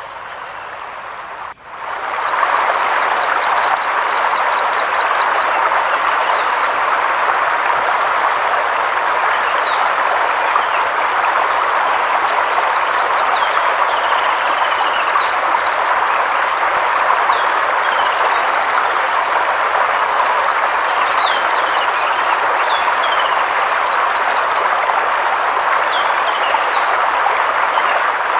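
Forest river flowing, a steady rush of water, with birds chirping and trilling over it in repeated short phrases. About a second and a half in, the water sound dips briefly and comes back louder.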